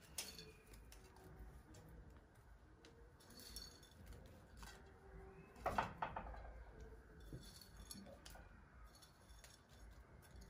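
Faint handling sounds of fried onions being sprinkled by hand from a ceramic plate onto rice in a pot: light rustles and small clicks, with a brief louder sound about six seconds in.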